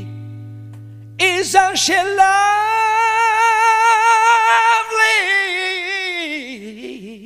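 A held guitar chord fades away, then a man sings one long, high note with a wide vibrato, almost unaccompanied, sliding down at the end as a vocal ad-lib.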